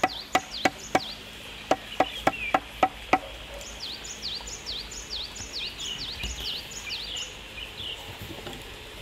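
A hammer knocking on a standing bamboo pole: about ten quick blows with a short hollow ring, stopping a little after three seconds in. Rapid repeated high chirps of a bird run on behind.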